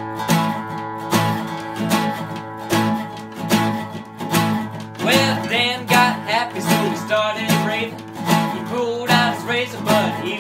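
Acoustic guitar and resonator guitar strumming a driving rockabilly rhythm together. About halfway through, a young male voice starts singing over them.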